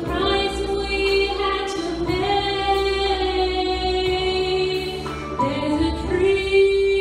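A woman singing solo into a handheld microphone. She holds long, steady notes and slides up into a new note about two seconds in, and again about five and a half seconds in.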